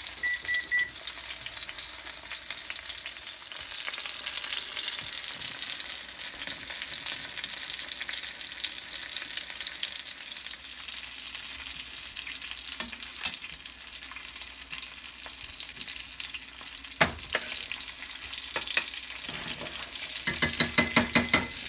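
Halibut fillets sizzling in hot basting oil and butter in a stainless-steel frying pan: a steady frying hiss. A few short high beeps sound at the very start, there is a single knock late on, and a quick run of beeps comes near the end.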